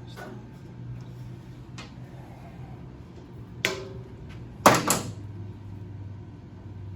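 A few sharp knocks over a steady low hum: a light one at the start, another about two seconds in, a louder one a little past the middle, and the loudest, a quick double knock, soon after.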